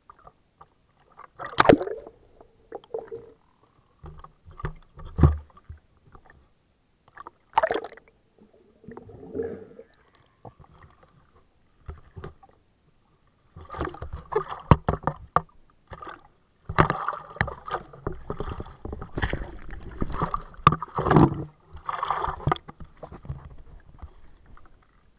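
Sea water splashing and sloshing around a camera held at the surface by a swimmer, in irregular bursts with sharp knocks as it moves in and out of the water. Sparse at first, then busy and almost continuous for the second half.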